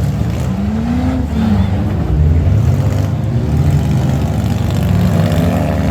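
Minivan engines running hard under heavy throttle, several at once, their pitch rising and falling as they rev.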